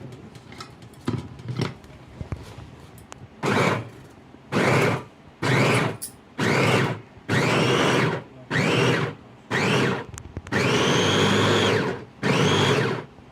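Electric vegetable chopper's motor pulsed in short bursts, about one a second, each spinning up with a rising whine, with one longer run near the end. A few light knocks of handling come before the first burst.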